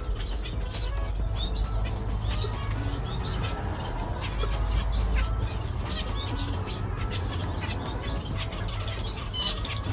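Zebra finches in an aviary calling with short rising chirps, several a second or two, mixed with the flutter of wings, over a steady low rumble that swells around the middle.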